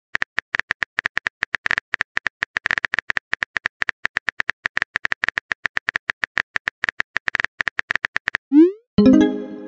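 Phone-keyboard typing sound effect: rapid clicks, about ten a second, for roughly eight seconds. Near the end comes a short rising swoosh, then a chiming message tone.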